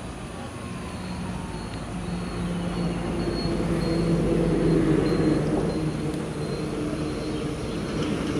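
An engine's steady drone, swelling to its loudest about halfway through and then easing slightly.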